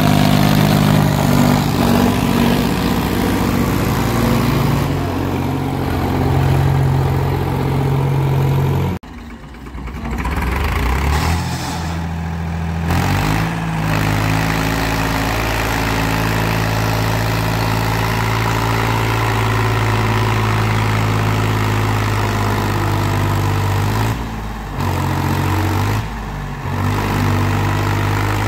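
Diesel tractor engines running hard under load while hauling a loaded trolley through mud. First comes a Sonalika DI-50 RX; the sound breaks off abruptly about nine seconds in and switches to a smaller tractor, whose engine revs up and then holds a steady pull, with two brief dips near the end.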